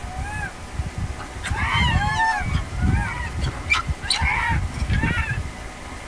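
A troop of macaques calling: many short, arched squeaks and coos, several at once in clusters, over a low rumbling.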